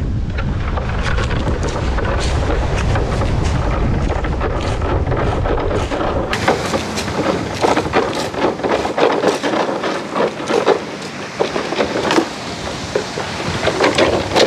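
Wind buffeting the microphone over breaking surf. About six seconds in the wind drops out and many sharp crunches and knocks follow: footsteps on beach pebbles and a driftwood pole scraping and knocking on the stones.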